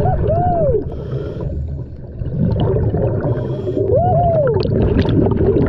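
Underwater sound of a scuba diver breathing through a regulator: a low rumbling and bubbling, with patches of hiss. A short whine rising and falling in pitch comes twice, at the start and about four seconds in.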